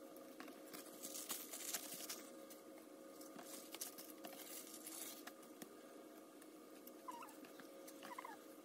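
Faint rustling and soft patting of thin plastic food-prep gloves handling stuffed grape-leaf rolls as they are packed into a pot. Many small, light clicks sit over a faint steady hum.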